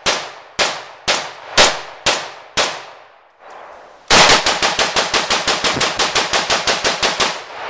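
Romanian SAR-1 AK-47 semi-automatic rifle in 7.62x39 firing outdoors: six single shots about half a second apart, then after a short pause a fast string of about two dozen shots, some seven or eight a second, that stops shortly before the end.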